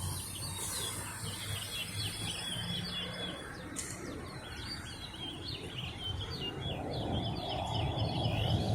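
Small birds chirping in rapid, continuous twittering runs over a low background hum. Near the end, traffic noise rises as a vehicle approaches.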